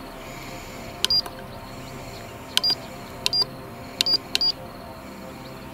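A handheld Mel-8704-R EMF meter beeping as its buttons are pressed: about five short, high beeps, each with a click, spaced irregularly between about one and four and a half seconds in.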